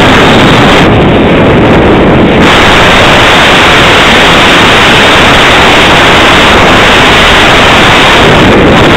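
Loud, steady rush of airflow buffeting the onboard camera microphone of an Easystar II RC model plane in flight, with no clear motor tone above it.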